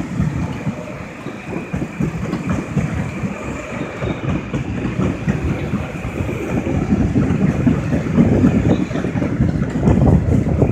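Metro-North M8 electric multiple-unit train passing by, a steady rumble with the wheels clattering over the rails, getting somewhat louder near the end.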